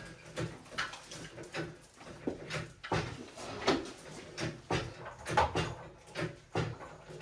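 Irregular knocks and clunks, about one or two a second, from objects being handled and moved about.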